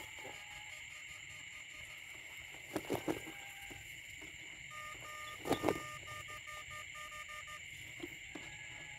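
Night chorus of frogs and insects in a wet field: a steady high trilling throughout, with a frog's call repeating like a beep in the second half. A few brief knocks and rustles come about three and five and a half seconds in.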